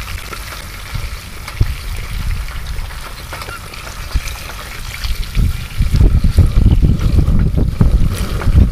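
Wind buffeting the microphone, an uneven rumble that grows much stronger about five and a half seconds in, over sausages and bacon sizzling in a frying pan on a gas camping stove, with a few light clicks of metal tongs against the pan.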